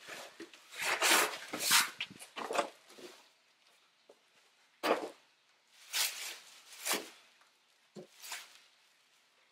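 Cardboard packing pieces and a clear plastic bag rustling and scraping as they are pulled off a boxed gas pressure washer, in a string of short bursts. The loudest bursts come about a second in, with more around the middle.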